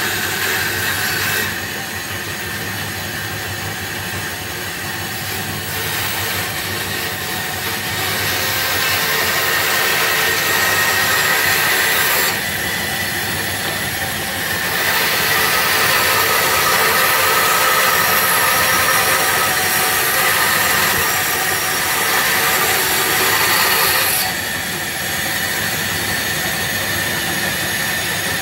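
Woodtek bandsaw running steadily and cutting small blocks of wood, louder in two long stretches in the middle.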